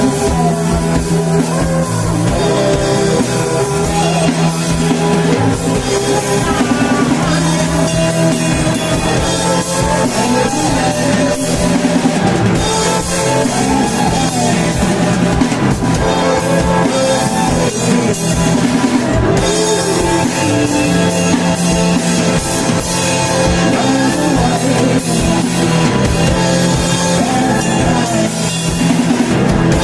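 Rock band playing live, with a drum kit and guitars.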